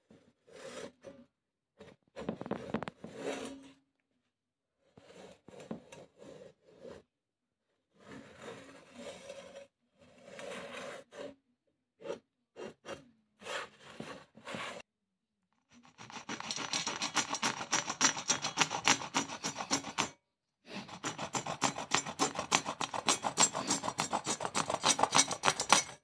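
Old hand saw rasping against a canvas ballet flat. Short, broken scrapes come first; about two-thirds of the way in they give way to fast, continuous sawing strokes that stop briefly once and then run on to the end.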